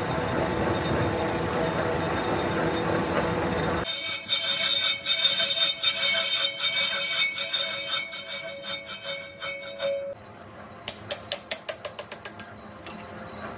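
Cast iron brake drum turning on a lathe: a steady machine running sound. About four seconds in it switches abruptly to a high-pitched squealing ring with rapid ticking as the tool cuts the drum, and near the end a quick run of about a dozen sharp ticks.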